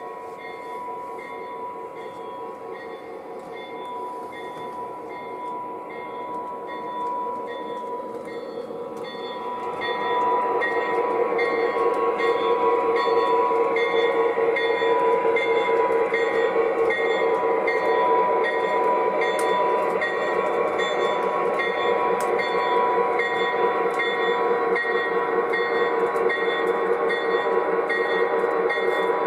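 O gauge model Conrail diesel locomotive running with its onboard diesel engine sound as it shoves two grain hopper cars. The engine sound grows markedly louder about ten seconds in, as if throttling up to move the cars, then holds steady.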